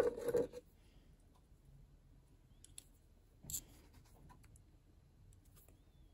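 Small jeweller's pliers being picked up and handled: a short clatter of clicks at the start, then a few light clicks, with a sharper one about three and a half seconds in.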